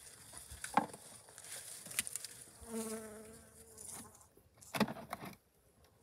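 Honeybees buzzing around disturbed hives, one flying close for under a second about three seconds in with a steady, even-pitched buzz. Sharp knocks of wooden hive boxes and frames being handled come about a second in, at two seconds and near five seconds, louder than the buzz.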